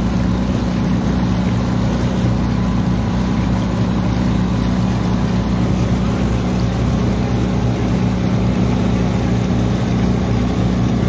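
Engine of a wooden motor boat running steadily, an even low drone that does not change in pitch or level, with water washing past the hull.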